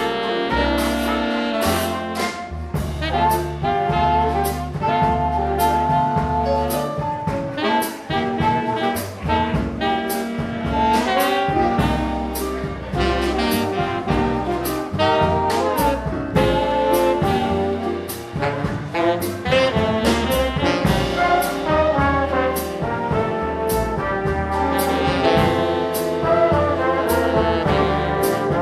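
A big band playing swing: trumpets, trombones and saxophones over bass and drums, with a steady beat.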